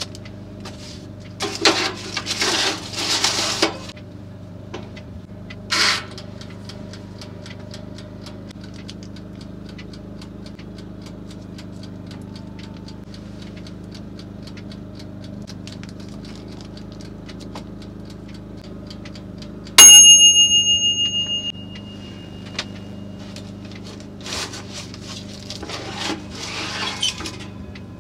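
A KitchenSmith toaster oven's mechanical timer ticking steadily, then its bell dings once about twenty seconds in and rings out over a second and a half, signalling that the timer has run out. A steady low hum sits underneath, with bursts of rustling from food and wrapper handling near the start and near the end.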